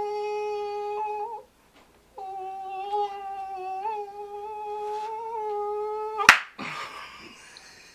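A man's vocal imitation of a mosquito's whine: a steady, nasal hum held in two stretches with a short break between, with small wavers in pitch. The second stretch ends in a single sharp slap, as if swatting the insect.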